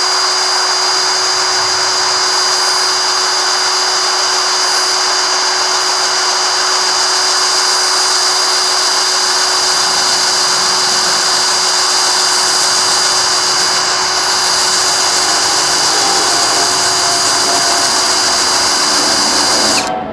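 DCK KDJZ03-13 cordless brushless drill running steadily in its low speed setting, a 7 mm metal twist bit slowly cutting into steel plate about 1 cm thick. It is a loud, even whine at a constant pitch with the grind of the bit, and it stops just before the end.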